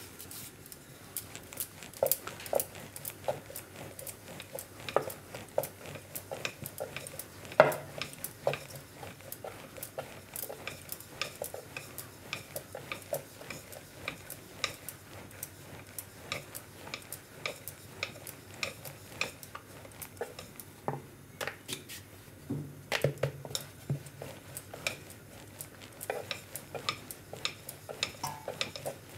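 Wooden rolling pin rolling out flatbread (thepla) dough on a wooden rolling board, with many light, irregular clicks and knocks, a few a second, as the pin rocks and taps on the board. One louder knock comes about eight seconds in.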